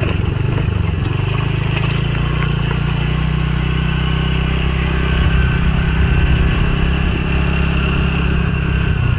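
Motor scooter's engine running steadily on the move, over an even rushing noise; it gets a little louder about five seconds in.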